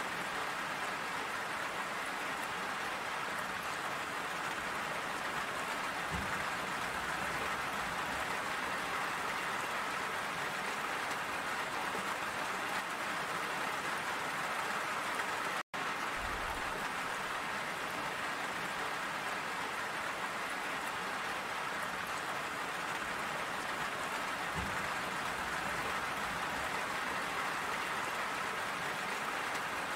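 Steady rain, an even hiss of many drops at a constant level, with a split-second dropout about halfway through.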